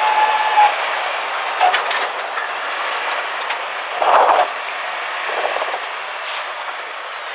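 In-cabin noise of a BMW E30 325i rally car at speed, its straight-six engine and tyre and road noise merged into a steady rush. There is a brief louder surge about four seconds in.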